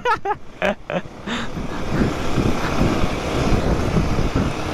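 Motorcycle being ridden: engine running and road noise, swelling into a dense, steady rush about a second and a half in.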